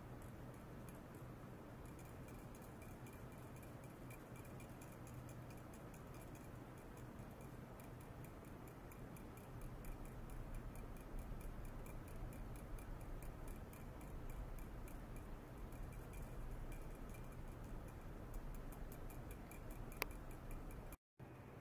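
Faint, rapid, fairly regular ticking over a low hum and a faint high tone, from ultrasonic probes on a glass of water driven by a function generator. It grows louder about halfway through, as the oscillation pattern changes, and there is one sharp click near the end.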